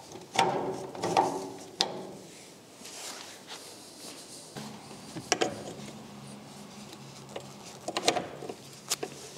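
Metal claw couplings on a rubber air hose being fitted and twisted onto an air dryer and a compressor's outlet valve: a few short metallic clanks and rattles, some briefly ringing.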